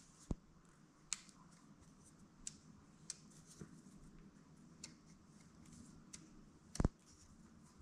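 Damper adjuster on a Fox DHX2 coil shock clicking through its detents as it is turned clockwise with an Allen key toward fully closed. About eight faint, sharp clicks come at uneven spacing, the loudest near the end.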